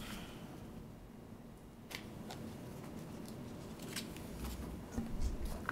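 Quiet room with a few faint, sharp clicks and taps, about four of them, and some low bumps near the end: small handling noises at a meeting table.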